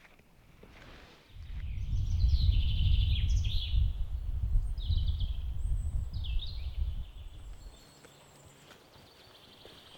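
Wind gusting against the microphone, a low rumble that starts about a second in and dies away after about six seconds, with small forest birds singing short high chirping phrases over it.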